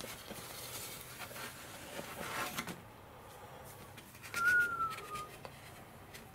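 Crinkly rustling of a glider wing being slid out of its foil-faced bubble-foam sleeve. About four seconds in comes a single short whistle-like tone that slides slightly down in pitch.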